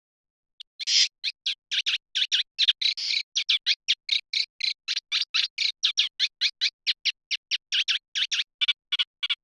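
Eurasian reed warbler singing: a fast, unbroken run of short chirping notes, about four or five a second, starting just under a second in.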